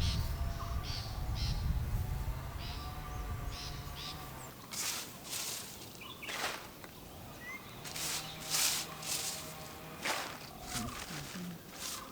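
Outdoor rural ambience: birds calling repeatedly, a low rumble in the first few seconds, then a series of short rustling swishes.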